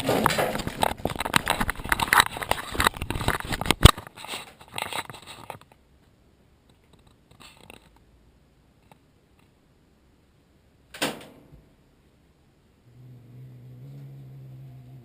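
Rustling and clattering handling noises with many small clicks and one sharp click, then a short scrape, and near the end a low steady hum.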